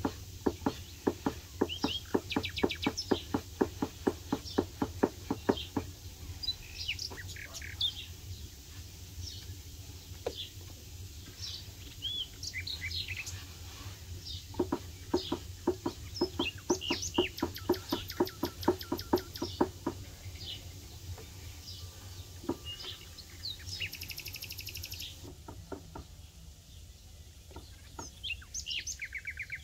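Small birds chirping and singing, with two long runs of a fast, evenly repeated sound, about four to five a second, that are the loudest thing heard.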